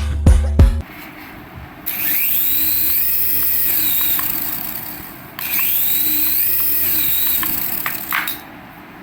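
Battery-powered toy's high whirring whine with a hiss, spinning up, holding and winding down twice, each run lasting about three seconds.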